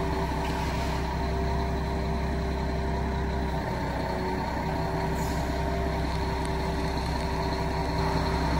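Knuckle-boom crane truck running steadily while its hydraulic crane lifts a load, a constant low engine drone.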